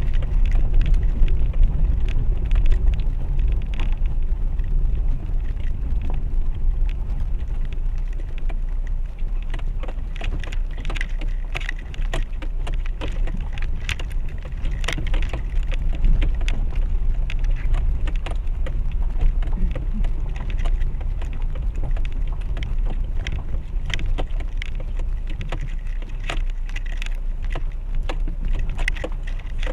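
Heard from inside a Renault Duster's cabin: the low rumble of the car creeping down a rough, stony mountain track, with frequent knocks and clicks of stones under the tyres and the suspension working over the bumps.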